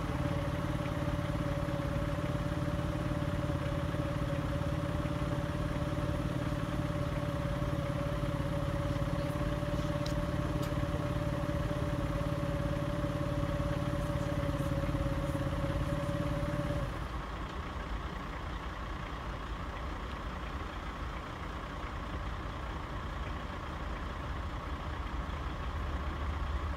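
Engine idling with a steady hum, cutting out suddenly about seventeen seconds in; a fainter steady background noise remains.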